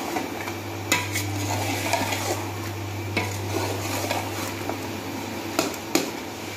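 Long metal spoon stirring and scraping chicken korma masala in a steel pot as it fries in oil, with sizzling and sharp clinks of the spoon against the pot about a second in and twice near the end. A steady low hum runs underneath.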